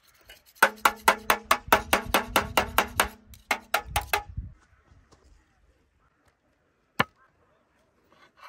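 A fast run of sharp knocks, about six a second, lasting about four seconds over a steady low hum, then stopping. A single sharp click comes about seven seconds in.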